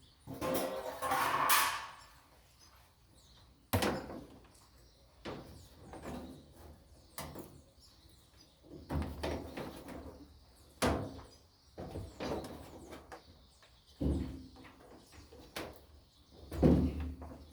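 Knocks, clunks and a scraping rustle from a top-load washing machine being taken apart. The sounds come at irregular intervals, with a louder clunk about four seconds in and a heavy thud near the end.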